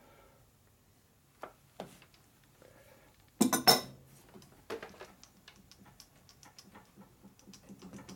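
Metal-on-metal clanks in a machine shop: a few light clicks, then two sharp ringing metallic clanks close together about three and a half seconds in, followed by scattered lighter clinks.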